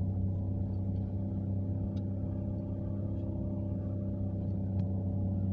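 Steady low drone of a car travelling at speed, heard from inside the cabin: engine and road noise holding one even pitch.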